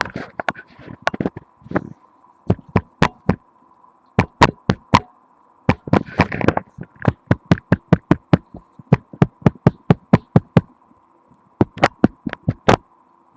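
A long run of sharp knocks: bone tapping on wood, heard through a microphone held against the body. The knocks come in quick runs of several a second, broken by short pauses.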